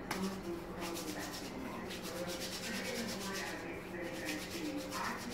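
Hands rubbing together palm against palm in quick, even back-and-forth strokes, a few a second.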